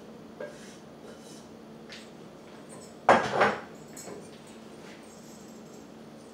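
Stainless-steel cookware clattering: two quick, loud metal clanks about three seconds in, with a few lighter knocks before and after, as pots are handled and set down on the stove.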